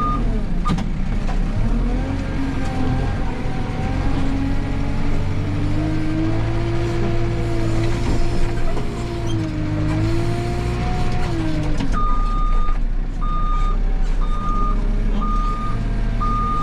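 Backhoe loader's diesel engine revving up and holding high as the front loader bucket of sand is raised, its pitch rising and falling, then dropping back about twelve seconds in. The machine's reversing alarm beeps briefly at the start and again steadily from that point, about one beep a second.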